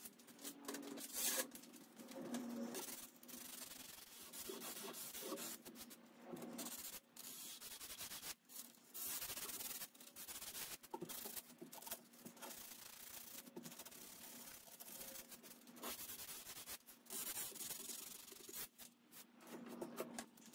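Hand sanding of a 1941 Lane cedar chest's bare, stripped wood with a hand-held sanding pad: rasping rubbing strokes in irregular runs, broken by short pauses.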